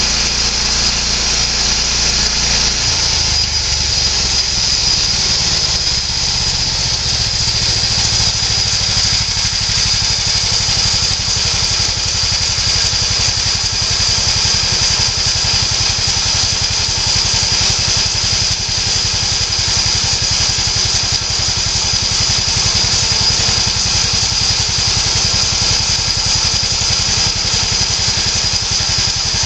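The 13 HP gas engine of a homemade bandsaw mill running steadily while the head is not cutting. Its low note changes about three seconds in, and a steady high whine sits above it.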